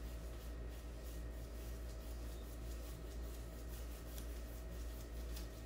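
Paintbrushes scrubbing and dabbing on watercolour paint pans and cardboard in short, irregular strokes, over a steady low hum.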